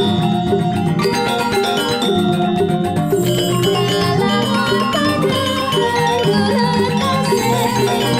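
Balinese gamelan music: fast, busy melody on struck metal mallet instruments over a steady low layer.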